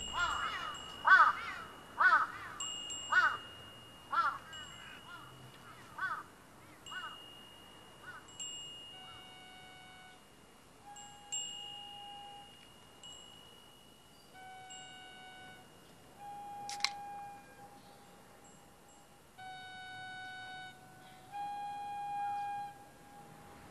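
A call repeated about once a second, fading over the first eight seconds, then slow, sparse chime-like tones ringing out one or two at a time, each held for a second or two. A single sharp click comes about 17 seconds in.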